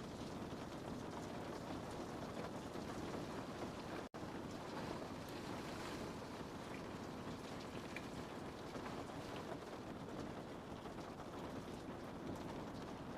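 Steady rain pattering on a window pane, with fine scattered drop ticks. The sound cuts out for an instant about four seconds in, then carries on unchanged.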